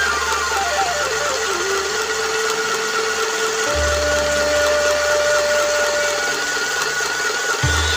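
Divya mini sewing machine running, its small motor whirring steadily, under instrumental background music.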